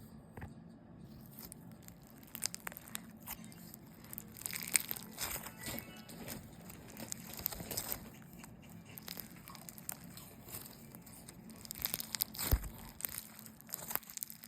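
Crunchy slime being squeezed and stretched by hand, making many small crackles and pops.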